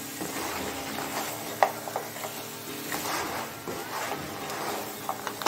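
Thick crab masala sizzling in a pan while it is stirred with a spatula, with a few light clicks of the spatula against the pan.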